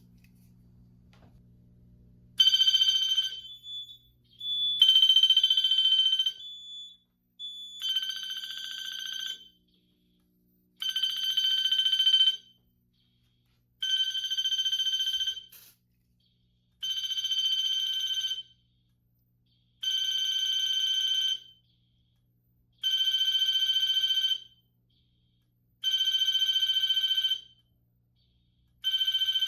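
Fire alarm horn sounding in alarm, starting about two seconds in. It gives buzzy blasts of about a second and a half, repeating about every three seconds.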